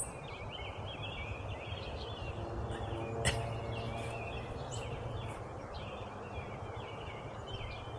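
Several small songbirds chirping and singing over steady outdoor background noise, with a single sharp click about three seconds in.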